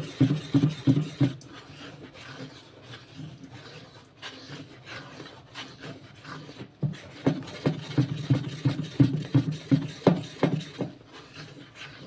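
A spatula stirring hot soapy water in a plastic basin. The soap is fully dissolved and the liquid sloshes and swishes with each stroke. The strokes come in a rhythm of about three a second, fainter in the middle and stronger again near the end.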